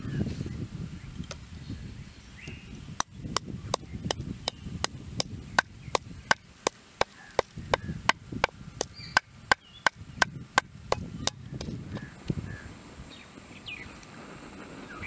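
Wooden pestle pounding spices in a wooden mortar: a run of sharp wooden knocks, about three a second, starting about three seconds in and stopping a few seconds before the end.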